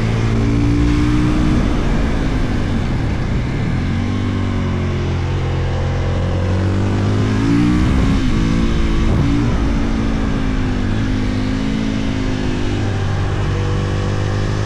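2022 Husqvarna FE 450 supermoto's single-cylinder four-stroke engine under way, holding steady revs in stretches and gliding and stepping up and down in pitch several times as the throttle and gears change.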